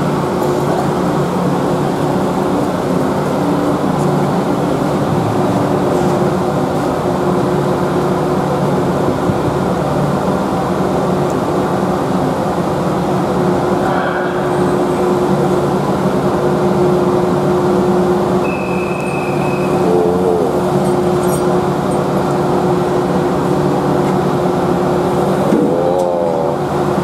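Moored car ferry's diesel engines running with a steady low drone. One short high beep sounds about two-thirds of the way through.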